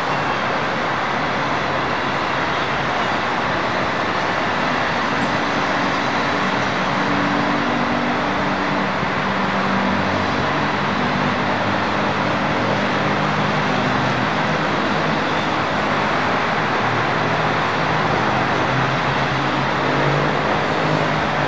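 Concrete mixer trucks' diesel engines running with their drums turning: a steady, loud machinery noise, with the engine note shifting up and down from about five seconds in.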